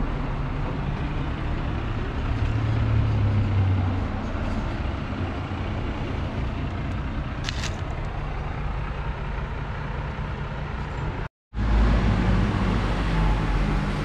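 Steady street traffic noise from passing cars, with a short break in the sound about eleven seconds in.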